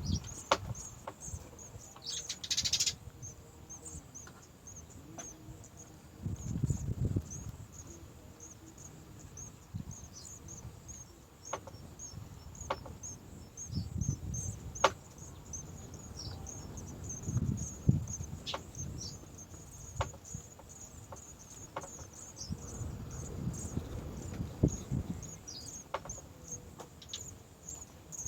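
Insects chirping in a steady chorus of rapid high-pitched pulses, with occasional dull low thumps, a few sharp clicks, and a brief rustle about two seconds in.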